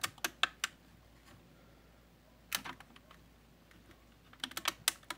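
Doors of a 1/25-scale plastic model car being pressed shut by a finger: small sharp plastic clicks, four quick ones at the start, one about halfway and a quick cluster near the end.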